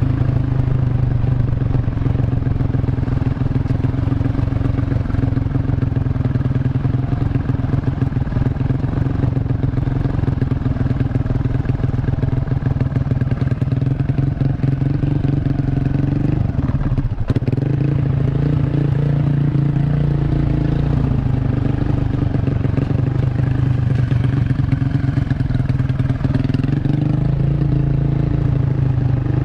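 Honda Revo motorcycle's single-cylinder four-stroke engine, bored up to 150cc, running through a CLD C7 aftermarket exhaust at a steady engine speed while riding. The note dips briefly a little past the middle, then picks up again.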